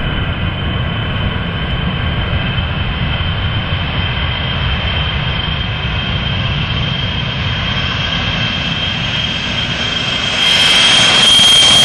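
Ilyushin Il-76's four turbofan engines at take-off power during the take-off roll: a low rumble with a steady high whine over it. About ten seconds in it gets much louder as the aircraft lifts off and comes close.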